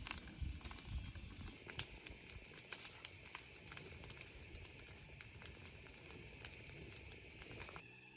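Insects trilling steadily at a high pitch, with scattered light clicks and low rustling. It all cuts off abruptly near the end.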